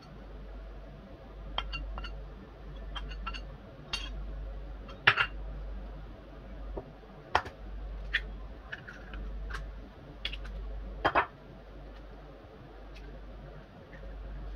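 Metal spoon clinking on a china plate and glass bowls as spices are spooned out, then eggs tapped and cracked against glass bowls: scattered sharp clicks and taps, the loudest about five, seven and eleven seconds in, over a low hum.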